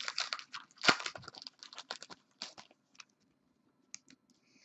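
Trading cards being handled and shuffled by hand: a quick run of light clicks and paper rustles for about two and a half seconds, then a few scattered clicks.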